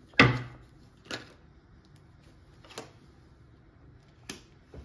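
Tarot cards being laid down and tapped onto a wooden tabletop: one sharp slap just after the start, then three lighter clicks spread over the next few seconds.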